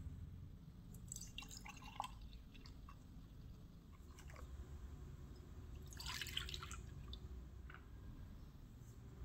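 Milk poured into a ceramic jug, a short splashing pour about six seconds in, after a few light clicks and taps of kitchenware, all faint over a low steady hum.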